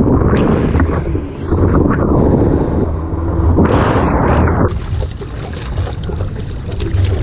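Heavy wind buffeting on the microphone of a POV action camera, with surges of rushing, churning ocean water that build and fall away several times and ease into a steadier hiss about two-thirds of the way in.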